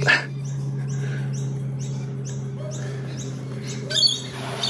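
A black hen pecking at feed in a small plastic tub, with a louder noisy burst near the start and again near the end. Behind it a small bird gives a high, falling chirp about twice a second, over a steady low hum.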